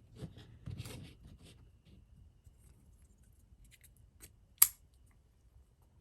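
Folding pocket knives being handled and laid out on a surface: light clicks and rubbing for the first second and a half, then one sharp click about four and a half seconds in.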